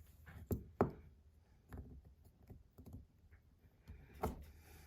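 Sharp clicks and taps of small hard parts being handled while fitting plastic magnet inserts into a stainless steel Rapt fidget slider: two clicks close together about half a second and a second in, a fainter one near two seconds, and another near the end.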